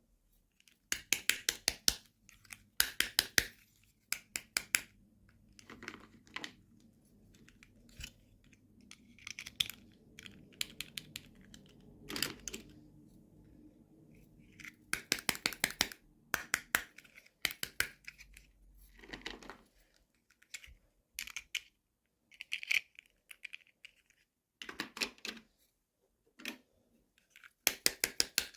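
Hands handling and opening plastic toy packaging: bursts of rapid crinkling and clicking, in clusters every second or two with short pauses between.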